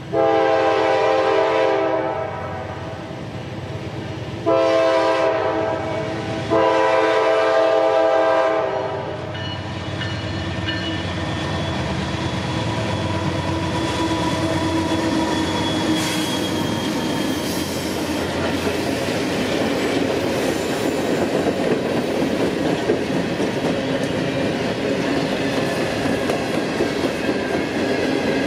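Norfolk Southern GE C44-9W No. 9640's air horn sounding three blasts in the first nine seconds, the last held longest. The lead GE diesel locomotives then pass close by, followed by a long string of empty coal hoppers rolling past with steady wheel clatter that grows louder toward the end.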